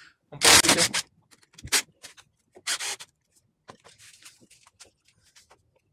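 Hand work in an engine bay: three short loud scraping bursts in the first three seconds, then lighter rubbing and clicking as the plastic air intake tube and rubber hoses are handled.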